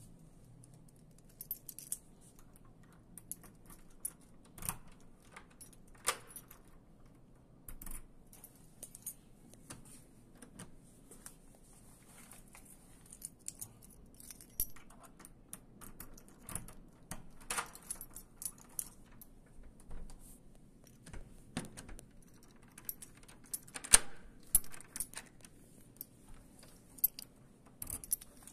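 A bunch of keys jangling and clicking on and off, with a key being fitted to a door's lock cylinder; the loudest clatter comes near the end.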